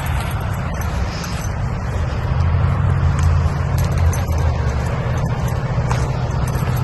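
Car engine and road noise heard from inside the cabin: a steady low rumble that grows a little louder from about two seconds in.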